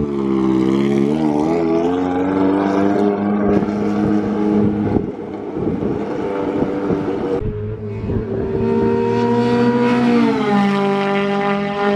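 Engine of a VW Golf Mk1 race car, revving unevenly at first and then running at steady high revs as it pulls away and drives past. Its pitch steps down near the end.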